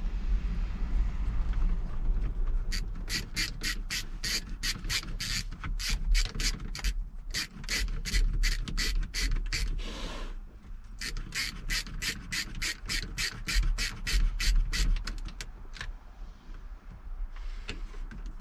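Hand ratchet clicking in quick strokes, about four a second, tightening bolts at a truck's steering column. The clicking pauses briefly about ten seconds in and then runs on until about fifteen seconds in, over a steady low rumble.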